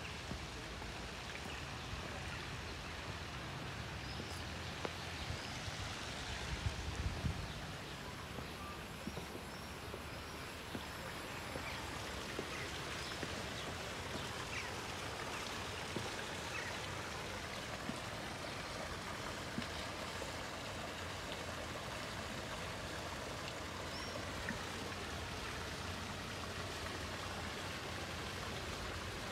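Steady splash and rush of fountain water pouring into a garden pond.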